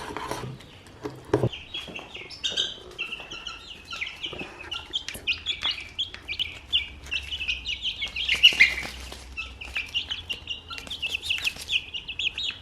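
A couple of sharp knocks, then from about a second and a half in, a bird chirping in a rapid run of short high notes that keeps going.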